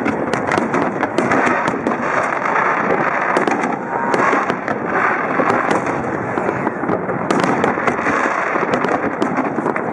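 Aerial fireworks display: many sharp pops and crackles in quick succession.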